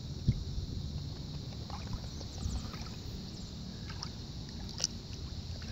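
Shallow lake water moving around hands and a released carp, with wind rumbling on the microphone. One sharp knock comes shortly after the start and a smaller one near the end.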